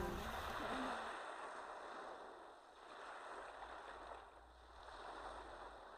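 Soft, even rushing outdoor ambience that swells and fades, with a faint low rumble midway; a voice trails off in the first second.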